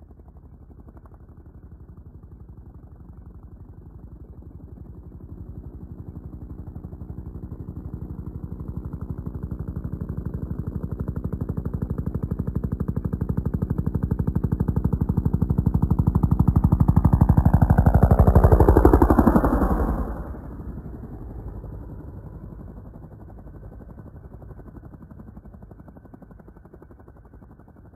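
Helicopter flying past with a fast, even rotor beat. It grows steadily louder as it approaches, passes overhead about 19 seconds in with a sharp drop in pitch, then fades away.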